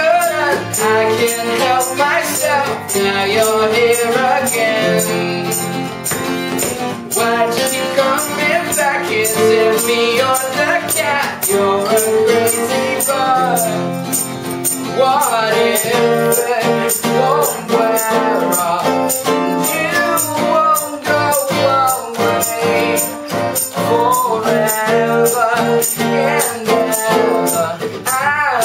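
A band playing a song: a voice singing over guitar, with shaken percussion such as a tambourine keeping a steady beat.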